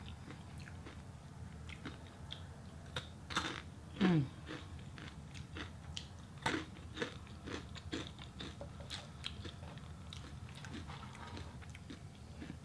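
Close-up chewing and crunching of food, with many small wet mouth clicks. About four seconds in there is a short falling hum, like an appreciative "mm".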